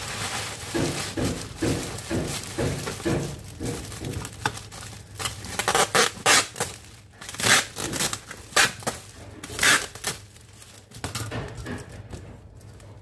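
Cellophane wrap crinkling as hands press and smooth it over a tray, with a string of short sharp crackles from about four to ten seconds in.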